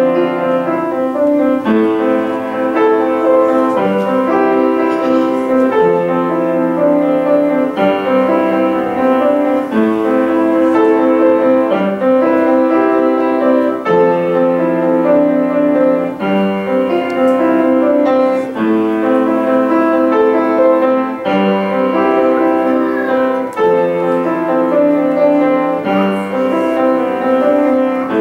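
Grand piano played solo: a slow piece of sustained chords, changing about every two seconds.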